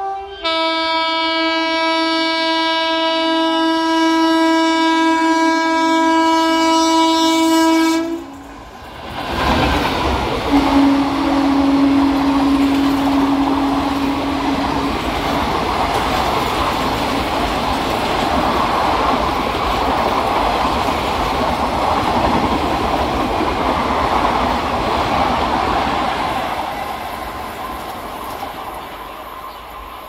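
Indian Railways electric locomotive sounding a long horn blast of about eight seconds, then the express running through at speed with wheel clatter and rumble from the coaches. A second, lower horn note sounds briefly as the train passes, and the clatter fades near the end as the last coaches go by.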